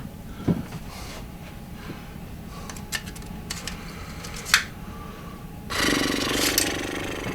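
A few light knocks and clicks of a small plastic part being handled and set up at a metal lathe, then about six seconds in the lathe motor starts and keeps running.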